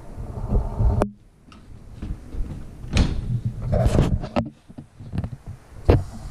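A steady low rumble that stops abruptly about a second in, followed by a series of separate knocks, clunks and rattles of something being handled, like a door or drawer being worked.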